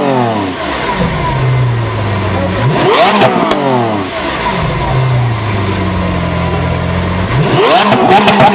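Supercar engine revved in short blips: the pitch falls away at the start, a sharp rev rises and drops about three seconds in, and another comes near the end, with the engine settling to a steady lower note in between.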